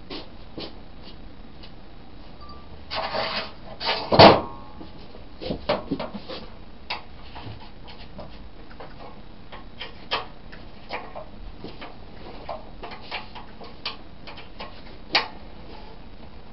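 Scattered clinks and knocks of hand tools and metal parts while the engine is being freed from the generator's steel frame, with a short scraping rub about three seconds in and the loudest knock just after it.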